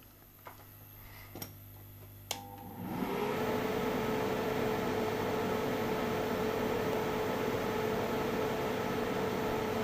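Hot-air rework station starting to blow about three seconds in, then running steadily: a loud rushing airflow with a steady hum, heating a MOSFET to desolder it. A few light clicks come before it starts.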